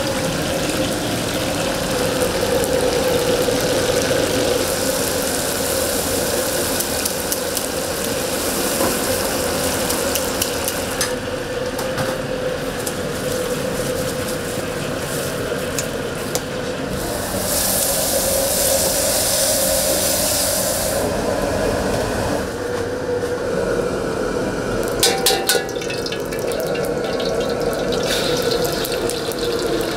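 Chinese restaurant wok station: a steady roar with water running from a tap. A harsher hiss rises for a few seconds a little past the middle, and a few quick metal clanks of a ladle on the wok come near the end.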